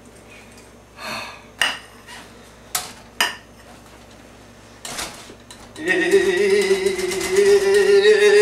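Metal whisk clinking against a mixing bowl as cake batter is beaten by hand: a few sharp separate clinks. About six seconds in, a loud, steady droning tone begins and runs on.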